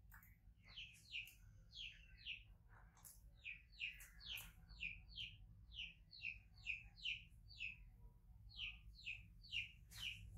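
A bird chirping over and over: short, high notes that fall in pitch, about two or three a second.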